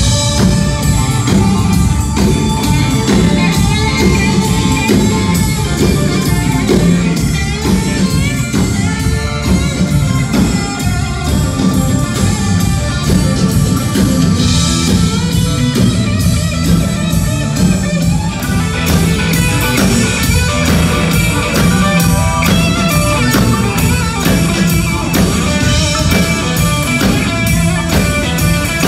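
Live rock band playing: electric guitar over bass and a drum kit, with a steady beat.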